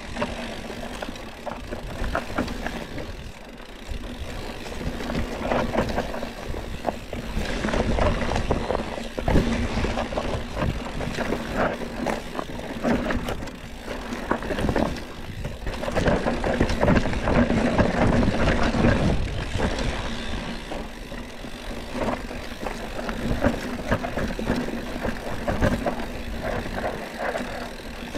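Mountain bike riding down a dirt forest trail: tyres rolling and crunching over soil and roots, with a constant clatter of small knocks from the chain and frame over bumps.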